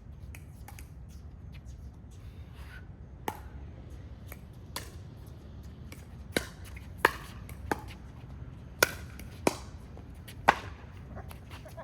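Pickleball rally: sharp knocks of paddles striking the plastic ball, and of the ball bouncing on the court, about eight in quick, uneven succession. They start about three seconds in and stop shortly before the end.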